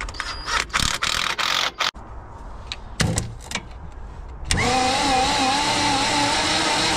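A few clicks and scrapes at the starter wiring, then about four and a half seconds in a starter motor cuts in and steadily cranks over a Land Rover 200Tdi four-cylinder diesel with its cylinder head off. It gives an even whir with a slightly wavering pitch. The once-seized engine now turns freely.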